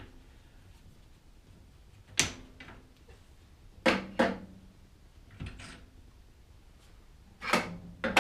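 Sharp metal clunks and knocks, about six of them and spaced unevenly, as a lathe's stock four-way tool post and its parts are taken off the compound and set down. Some clunks leave a short metallic ring.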